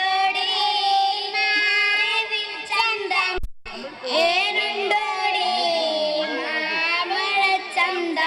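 A young girl singing into a handheld microphone, holding long wavering notes. The sound cuts out for a moment about three and a half seconds in.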